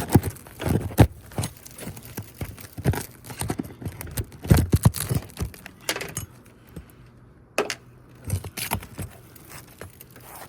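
A roofing pry tool worked under old asphalt shingle tabs to get at the nails: irregular scrapes, clicks and metallic clinks, with a quieter spell about six to eight seconds in.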